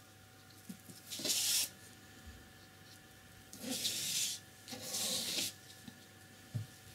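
A paintbrush rubbing across paper: three short scratchy strokes, the first about a second in and the other two around four and five seconds in.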